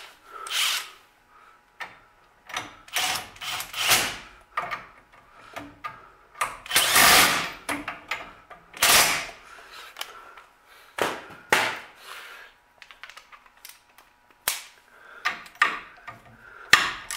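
Tools working on the bolts of a disc brake caliper: irregular clanks and clicks in short bursts, with a longer run of tool noise lasting about a second near the middle.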